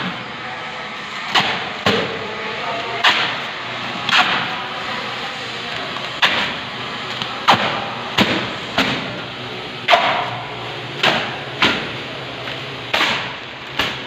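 Protective plastic film being yanked off aluminium composite ceiling panels in a series of sharp snaps, about a dozen at irregular spacing, roughly one a second.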